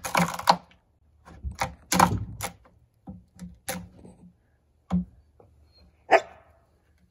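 An edged hand tool chopping into a log as a notch is cut: about seven sharp, irregular strikes into the wood.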